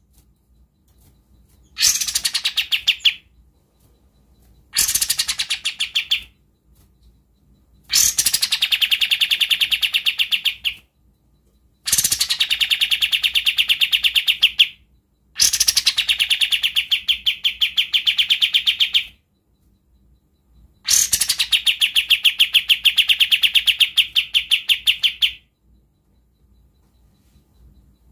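Caged kapas tembak bulbul singing its 'besetan', a dense, rough, rapid-fire trill of repeated notes. It comes in six bursts with short pauses between them, the first two brief and the later ones about three to four seconds long.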